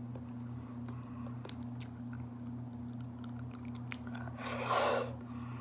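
A person chewing raw honeycomb: scattered small sticky mouth clicks as the wax and honey are worked, with one louder, longer mouth noise about four and a half seconds in. A steady low hum runs underneath.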